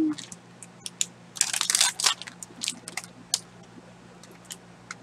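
Crinkling of a glossy plastic snack bag being handled and turned over, in irregular bursts of crackle, loudest about a second and a half in.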